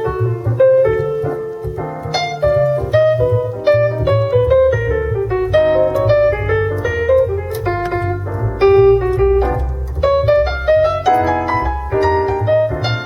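A piano trio recording played through a Mercedes C-Class W205's Burmester surround sound system: a busy piano line over a deep, heavy bass line.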